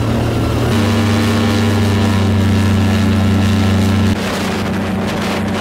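Airboat engine and propeller running under way, a loud steady drone. The note shifts under a second in, and the engine eases off slightly about four seconds in.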